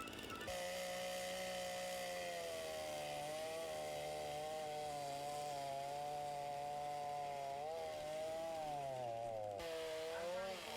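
Chainsaw running steadily at high revs while carving wood, its pitch wavering slightly up and down and dropping near the end.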